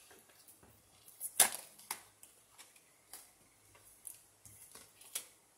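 Tarot cards being handled and laid down on a table: scattered sharp clicks and snaps, the loudest about a second and a half in.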